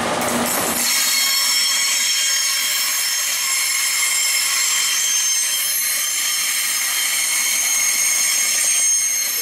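Tri-Rail bilevel passenger coaches rolling past with their steel wheels squealing on the rail: a steady high-pitched squeal made of several tones held together. A low rumble drops away about a second in.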